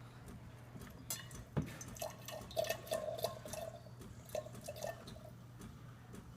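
Gaggia Titanium espresso machine's steam wand spitting and dripping water in irregular pops and clicks as steam is started, over a steady low hum.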